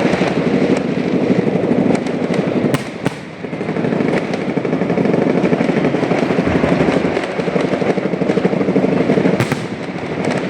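Fireworks going off in a dense, rapid barrage of crackles and bangs, easing briefly about three seconds in.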